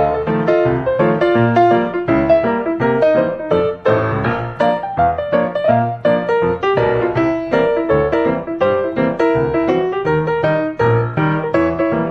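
Background piano music: a quick, steady stream of notes.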